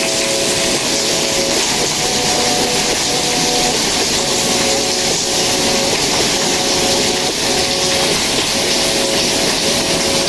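Heavy tropical rain pouring down steadily, a dense even hiss of drops on paving and foliage. Soft background music of held notes runs underneath.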